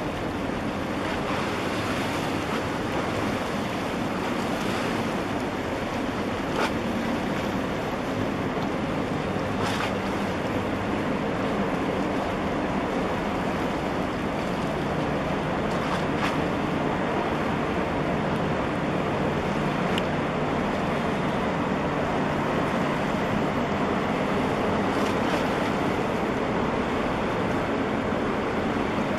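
Steady rush of churned water and wind as a 366 m container ship passes close alongside, with a low steady drone from the ship underneath.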